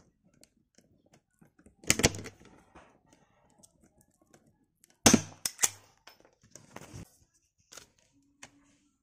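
Sharp knocks and clicks from a hand-held electric drill being handled against a wooden board: one loud knock about two seconds in, two more about five seconds in, with lighter taps between; the drill motor is not running.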